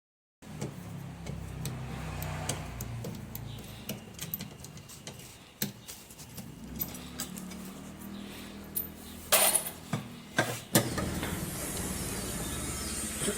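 Metal clinking and knocking from a washing machine being taken apart by hand, over a low rumble in the first few seconds, with a few loud clanks about nine to eleven seconds in.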